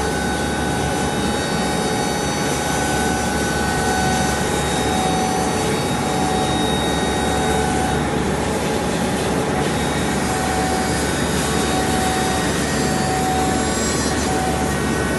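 A machine running steadily: an even rushing noise with a constant whine that holds throughout.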